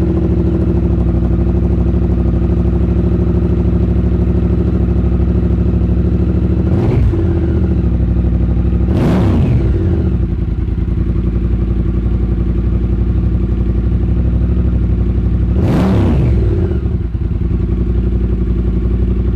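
Triumph Bobber's 1200 cc parallel-twin, just started, idling through short Motone Mayhem Shorty silencers with the catalytic converter kept. A short blip of the throttle about seven seconds in, then two stronger revs about nine and sixteen seconds in, the note rising and falling back to idle each time.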